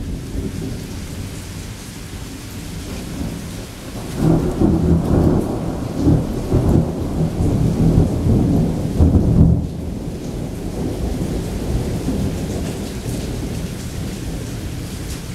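Heavy rain falling steadily, with a long, low roll of thunder that builds about four seconds in, rumbles for some six seconds and drops off suddenly.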